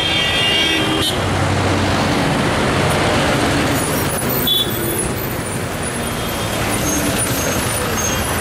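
Busy street traffic: buses, cars and motorcycles passing, engines and tyres making a steady, dense noise, with a short horn beep about halfway through.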